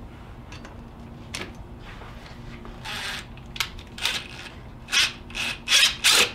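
Cordless impact driver running in short bursts on a puller's forcing screw, pulling the pulley off an alternator. The bursts start about three seconds in and come quicker and louder near the end.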